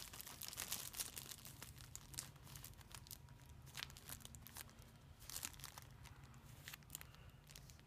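Clear plastic parts bags crinkling faintly as they are handled, with scattered sharper crackles.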